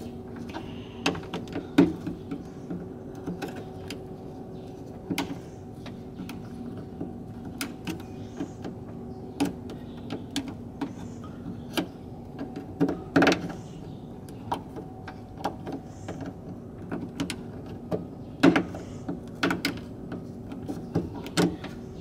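A cutter clicking and snapping irregularly as it trims material from a plastic car door-lock housing to make room for a new actuator wire, over a steady background hum.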